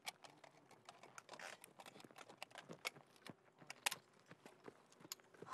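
Quiet, irregular light clicks and scuffs of footsteps and rattling kit as a soldier walks across dry, hard ground.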